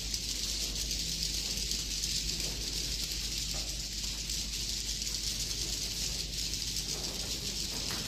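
Edible-nest swiftlets twittering in a dense, steady chorus of high, thin chirps.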